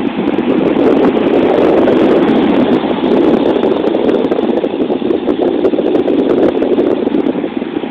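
Small RC toy helicopter's electric motor and rotor blades buzzing loudly close to the microphone, falling back near the end as it moves away.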